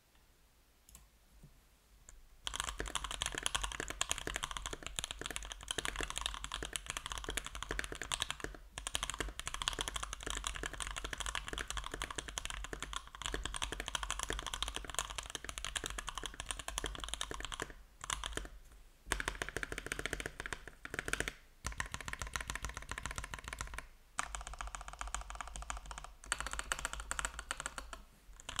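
Fast continuous typing on a custom mechanical keyboard with lubed, filmed C3 Banana Splits linear switches, an FR4 plate, screw-in stabilizers and case foam, under GMK keycaps: a dense stream of keystroke clacks, starting about two and a half seconds in, with a few brief pauses.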